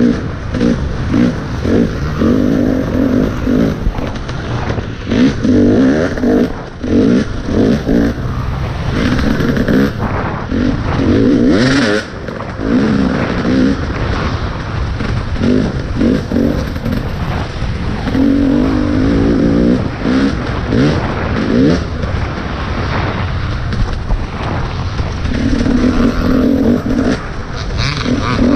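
Off-road motorcycle engine revving up and backing off again and again as it is ridden hard over rough ground, over steady wind and rattle noise; a sharp clatter cuts through about twelve seconds in.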